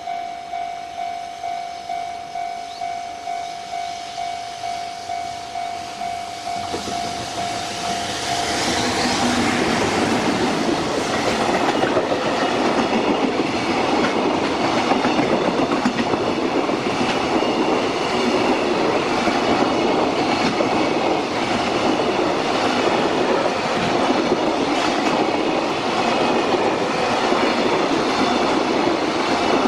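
Level-crossing warning signal ringing, a steady tone pulsing about twice a second. A JR Freight train then comes up about seven seconds in and passes, its wagons' wheels clattering steadily over the rail joints.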